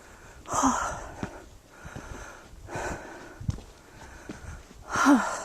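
A person breathing hard from the exertion of a long uphill hike: three heavy breaths, about two seconds apart.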